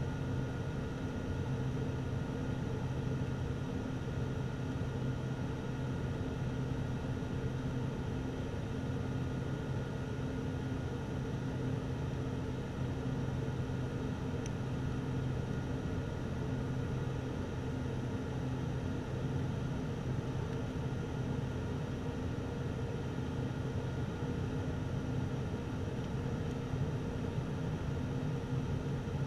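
Steady drone of a turboprop airliner's engines and propellers heard from inside the cabin as it descends to land, a low hum with a few steady tones and no change in pitch.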